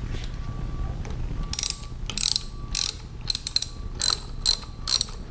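A hand tool working a fastener in short ratcheting strokes, about ten of them from a second and a half in, over a low steady hum.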